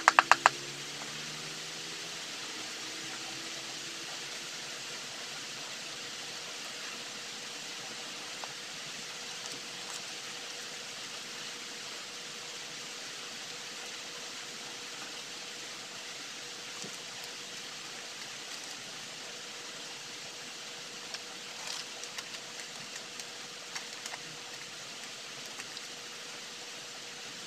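Steady background hiss with a faint steady hum. It opens with a quick run of sharp clicks, and a few light taps and clicks come about 21 to 26 seconds in, as a trowel and plant pots are handled.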